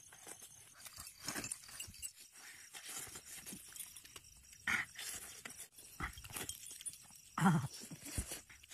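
Faint, scattered smacking and chewing of a man eating chicken curry and rice by hand, with a short voice-like sound about halfway through and a louder one near the end.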